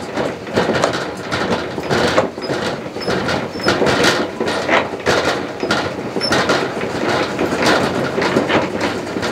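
Hand-cranked four-frame stainless-steel honey extractor spinning with a continuous rapid metallic rattle and clatter. The machine is not anchored and stands on soil, so it shakes as it turns.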